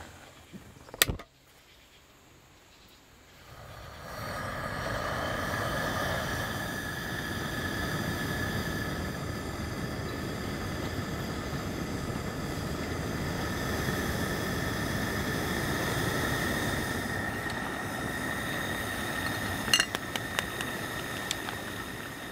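A sharp click about a second in, then a remote-canister gas stove's burner comes on about three and a half seconds in and runs steadily under a kettle, with a few light clicks near the end.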